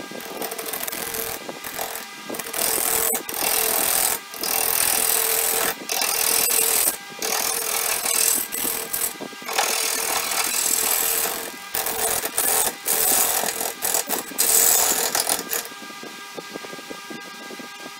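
A gouge cutting a spinning black walnut blank on a wood lathe, in repeated passes broken by short pauses every second or two. About three seconds before the end the cutting stops and the lathe runs on with a steady hum.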